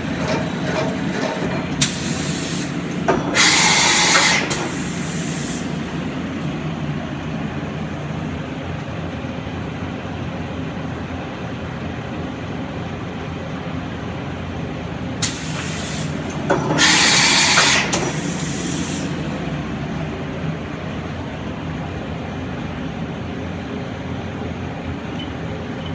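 1993 Mori Seiki MV-Junior vertical machining centre running with a steady hum. Twice, a sharp click is followed about a second and a half later by a loud hiss of compressed air lasting about a second, as the side-mount tool changer cycles.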